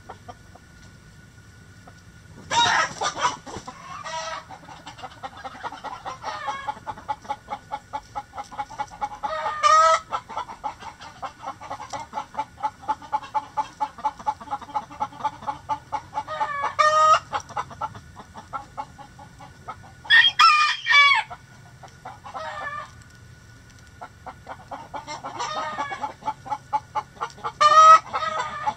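Chickens clucking in a steady run of about three clucks a second, broken five times by a loud call lasting up to about a second.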